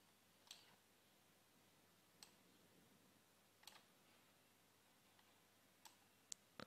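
Near silence broken by a handful of faint computer mouse clicks, spaced a second or two apart.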